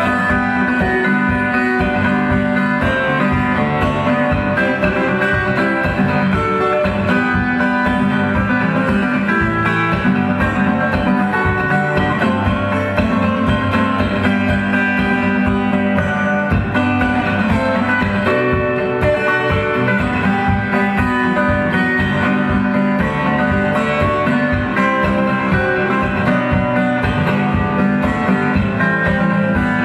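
Solo acoustic guitar played fingerstyle: a busy plucked melody over steady bass notes, at an even loudness throughout.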